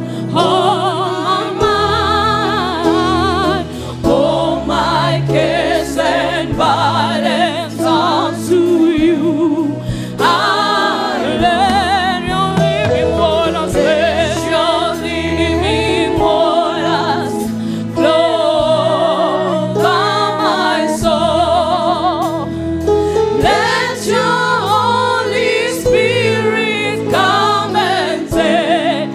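Gospel worship music: several voices singing with vibrato over a band with sustained bass notes and a steady drum beat.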